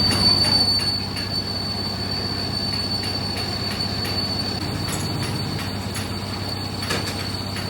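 A steady high-pitched squeal, one unchanging tone that starts at the outset and holds throughout, over a low steady machine hum.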